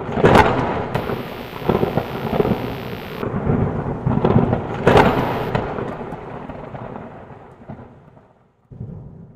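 Thunder-like rumble sound effect for a logo reveal, with two loud booming hits, one just after the start and another about five seconds in, then fading away over the last few seconds.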